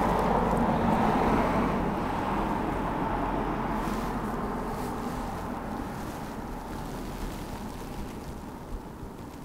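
A car passing on the street, loudest at the start and fading gradually away.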